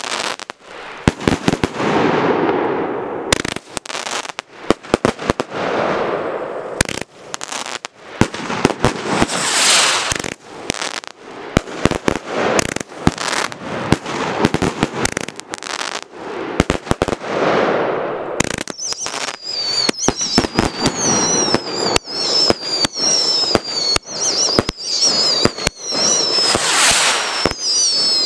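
BDH 3-inch ballshell rockets firing in a continuous barrage: many sharp bangs in quick succession over swelling waves of hissing. About two-thirds of the way in, several whistles join, each gliding down in pitch.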